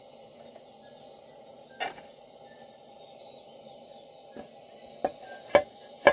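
Metal knocks and clanks as the box-shaped case of a vintage Optimus 199 camp stove is opened and its lid swung back: one knock about two seconds in, then three sharper clanks in the last second and a half, the last two the loudest, over a steady low background hiss.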